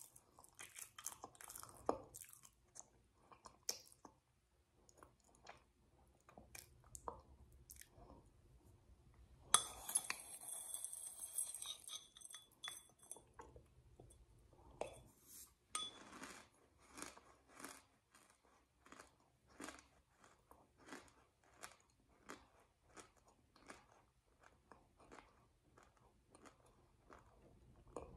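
Close-up chewing and mouth smacking on a crunchy food, with sharp crunches a few times a second. A denser, louder stretch of crunching and clinking comes about ten seconds in.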